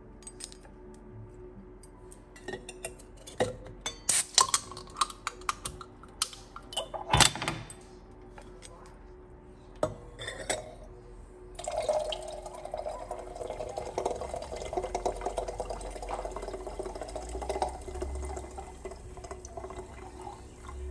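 Canned tonic water poured into a glass of pink gin: a steady stream of liquid splashing and fizzing as the glass fills, starting about twelve seconds in. Before that, a run of sharp clicks and taps as the can and the wine glass are handled.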